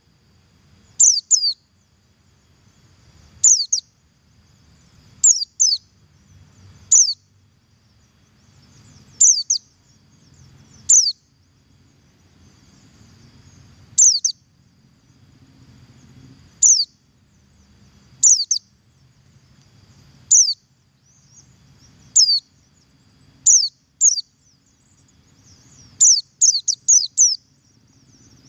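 Pleci buxtoni white-eye giving its sharp, high, downward-slurred call notes, often doubled, every second or two, with a quick run of four near the end. This is the double call used as a lure to get other pleci singing.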